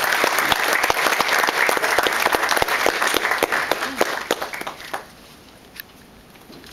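Audience applauding, a dense patter of many hands clapping that thins out and stops about five seconds in.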